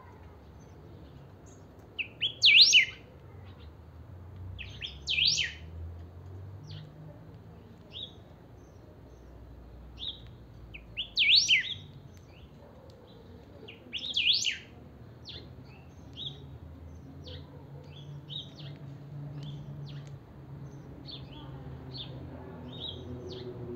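Caged picahueso (greyish saltator) singing: four loud short song phrases a few seconds apart, with softer short chirps in between.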